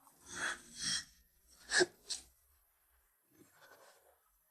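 A woman's sharp startled gasps and breaths, as on waking from a nightmare: a run of short breaths with the loudest a little under two seconds in, then a few faint ones.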